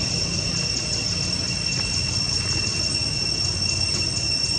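A steady high-pitched insect chorus that pulses about four times a second, over a low steady rumble.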